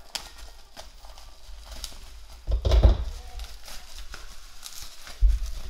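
Bubble-wrap packaging crinkling and rustling as a cardboard parcel is unwrapped by hand. A loud bump comes about two and a half seconds in, and another near the end.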